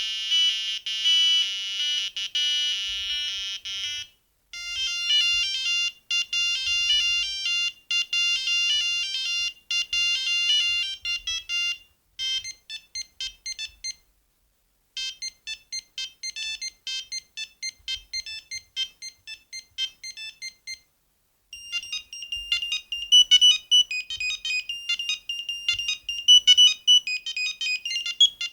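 Siemens C35 mobile phone playing its monophonic ringtones and alert tones one after another: about five different high-pitched beeping tunes, each broken off by a brief pause before the next starts.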